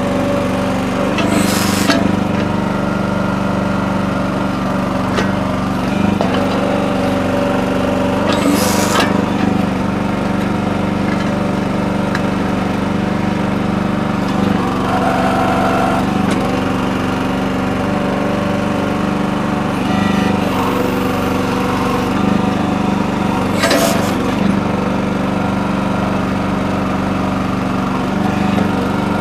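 Small gasoline engine of a Red Rock towable mini backhoe running steadily while digging, its pitch dipping slightly as the hydraulics take load. Three brief bursts of noise break through, about two seconds in, near nine seconds and near twenty-four seconds.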